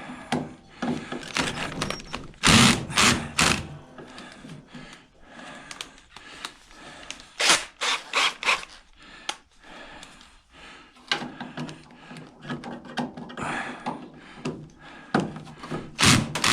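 Irregular sharp knocks and clatter of hand tools against the metal case and parts of an old microwave oven being taken apart, in several short clusters.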